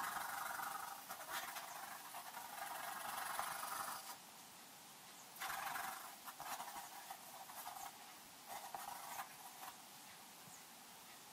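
Graphite pencil hatching on paper: a dense run of scratching strokes for about four seconds, then shorter bursts of scratching with pauses between them, dying away near the end.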